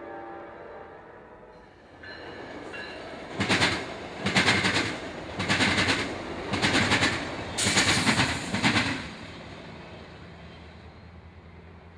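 A train horn dies away, then a passing train's wheels clatter over a railroad diamond crossing in about six loud, sharp bangs roughly a second apart, before the rumble fades.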